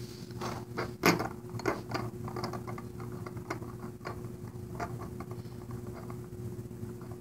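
Small clicks and taps of the plastic and metal parts of a Beyblade Metal Saga top being handled and pressed together by hand, with the sharpest click about a second in.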